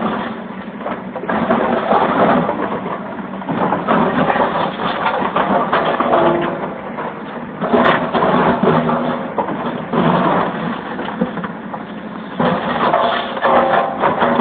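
Backhoe at work: its engine running under irregular crunching and cracking.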